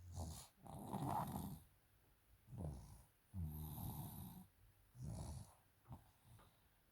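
A child snoring in her sleep: a series of about five low, rasping snores, roughly one every second and a half.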